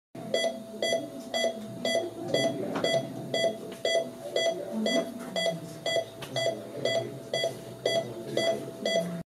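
Bedside patient monitor beeping with each heartbeat: short, evenly spaced beeps about two a second, a pulse near 120 a minute.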